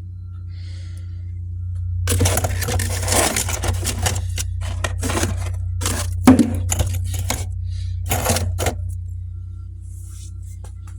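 Freezer frost being scraped and packed by hand: a run of irregular scraping crunches about two seconds in, lasting some seven seconds, with one sharper crunch in the middle, over a steady low hum.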